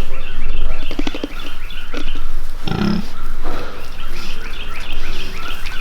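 Pigs grunting: a pulsed grunt about a second in and a short, deeper grunt near the middle. Small birds chirp steadily in the background.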